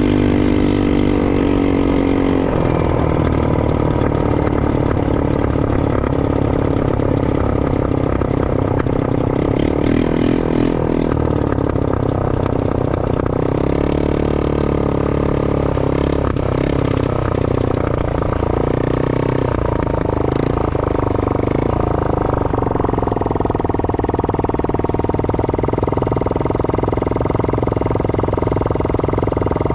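Four-wheeler (ATV) engine running steadily, its pitch rising and falling with the throttle, with a few knocks and rattles through the middle.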